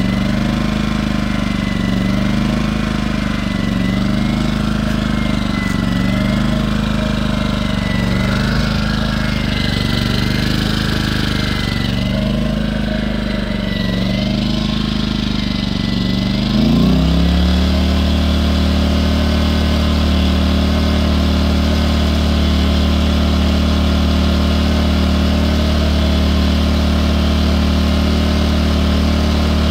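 Firman W01785 inverter generator engine running, its speed rising and falling about every two seconds (surging). About 17 seconds in it picks up briefly and settles into a steady, even speed.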